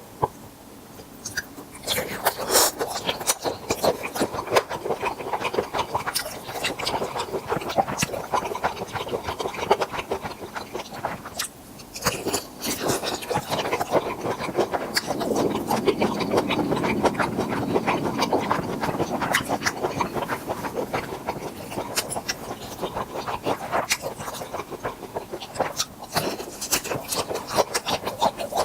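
Close-miked eating sounds: a person chewing grilled tiger prawns, with dense wet smacking and crisp crunching clicks. It is quieter for about the first two seconds, then steady and busy, with a short pause near the middle.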